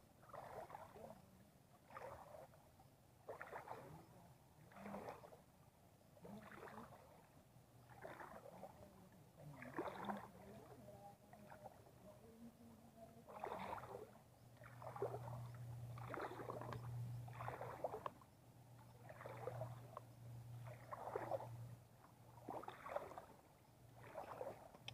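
Faint water splashes repeating about every second and a half, like paddle strokes or feet wading through shallow river water, with a faint steady low hum in the middle stretch.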